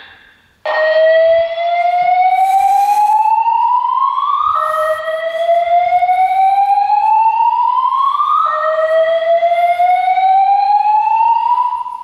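EST Genesis speaker strobes of a voice evacuation fire alarm system sounding the slow whoop evacuation tone: three rising whoops in a row, each about four seconds long.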